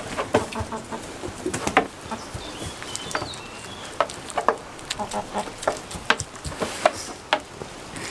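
Goats biting and chewing tomatoes from a hand: irregular sharp smacks and crunches of wet fruit being eaten.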